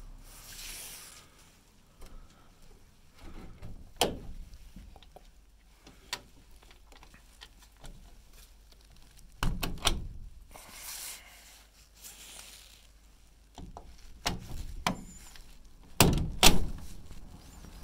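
Metal hasp latch on a wooden door clicking and clanking as it is flipped and fastened, with knocks of the door against its frame. A scattering of single knocks, and the loudest pair near the end.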